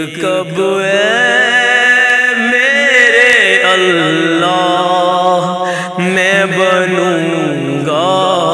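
A man's solo voice singing a naat in Urdu, drawing out long ornamented phrases with the pitch sliding and wavering up and down, and a short break about two-thirds of the way through.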